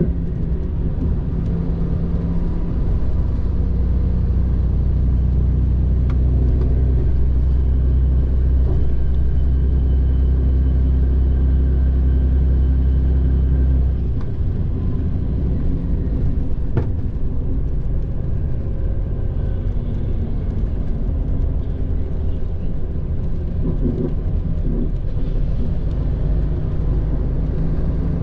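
Cabin noise of a Mitsubishi Fuso Aero Ace highway coach under way: a steady deep rumble of the diesel engine and tyres, with a hum of engine tones over it. About halfway through, the deepest part of the rumble drops a little.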